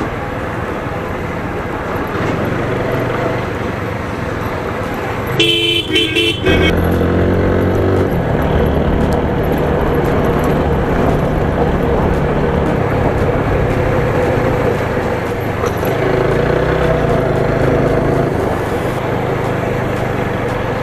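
Road vehicle noise with a steady engine hum, and a vehicle horn sounding briefly about five seconds in.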